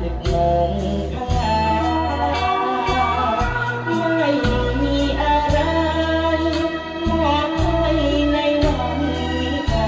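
Young male voice singing a Thai luk thung song into a microphone over backing music with a steady bass and drum beat.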